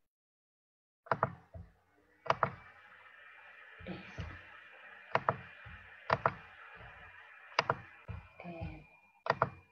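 Sharp clicks of a computer mouse, about a dozen, mostly in quick pairs like double-clicks, over a steady hiss with a faint high tone.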